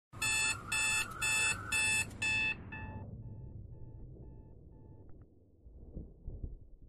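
Digital alarm clock beeping, about two beeps a second. The beeps are loud for the first couple of seconds, then fade away by about five seconds in.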